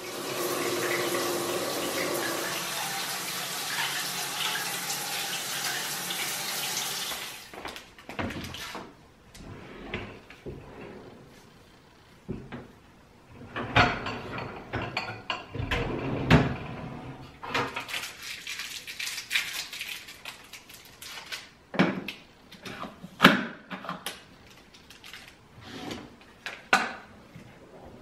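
Water spraying from a shower head in an even hiss for about seven seconds, then stopping. Later come cups and a pot lid clinking against the wire rack of a dishwasher, with a few sharp clacks near the end.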